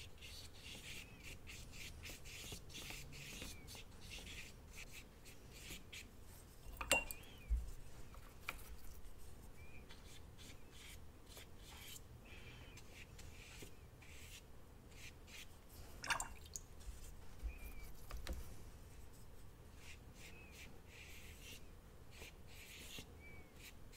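Faint scratchy strokes of a paintbrush on watercolour paper, with a few sharp taps, the loudest about seven seconds in and again about sixteen seconds in.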